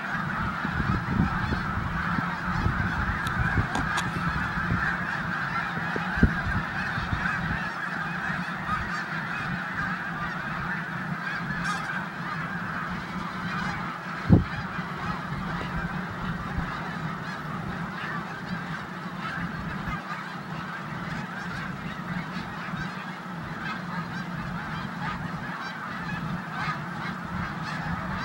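A large flock of snow geese calling nonstop, a dense din of many overlapping honks. Two brief knocks stand out, about 6 and 14 seconds in.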